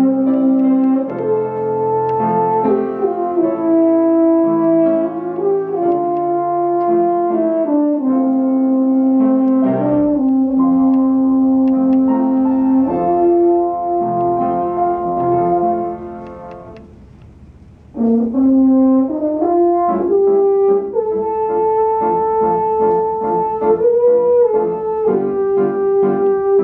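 French horn playing a slow, lyrical melody of long held notes, with piano accompaniment. About sixteen seconds in the music fades to a brief pause, then the horn comes back in over repeated piano chords.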